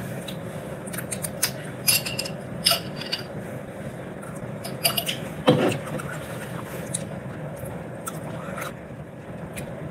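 Metal fork clinking against the inside of a glass pickle jar as pickles are speared out: a series of sharp clinks in the first few seconds and a louder, duller knock about five and a half seconds in, over a steady low hum.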